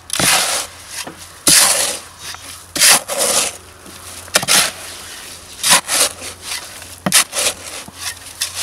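Shovel scraping and scooping through a wet concrete mix of cement, sand and gravel in a wheelbarrow, a gritty scrape every second or so with smaller scrapes between.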